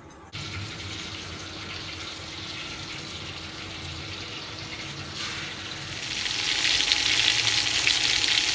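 Chicken pieces sizzling as they fry skin side down in a very hot wok. The sizzle starts suddenly and grows louder and brighter about six seconds in.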